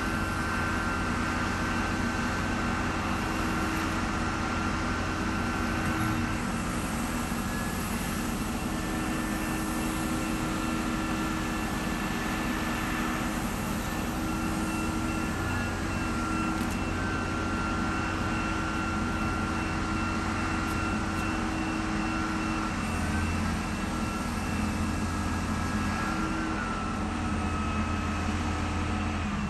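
Steady motor hum with a low rumble and a thin high whine that shifts slightly in pitch every few seconds.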